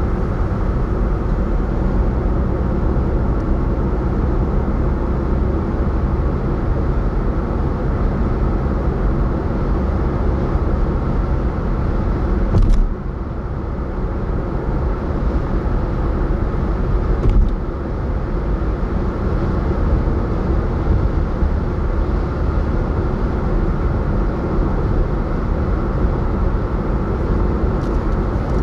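Car driving at road speed: steady tyre and road rumble. About halfway through come two sharp knocks a few seconds apart as the tyres cross the ends of a bridge, and the road noise is a little quieter between them.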